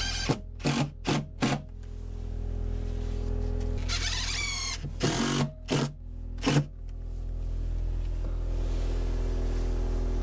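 Cordless drill-driver driving screws into timber in short trigger bursts: four quick ones in the first second and a half, then three or four more a few seconds later, one with a rising whine as the motor speeds up. A steady low hum runs underneath.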